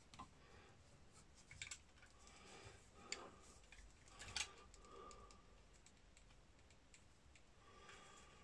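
Faint scraping and a few sharp clicks of a utility knife working the outer sheathing of Romex cable.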